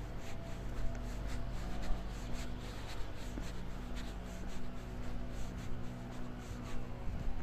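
Footsteps of a person walking on paving stones, about two steps a second, over a steady low hum.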